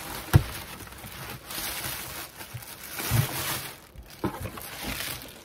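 Plastic air-cushion packaging crinkling and rustling as it is handled and pulled out of a cardboard box, with a few dull knocks against the box.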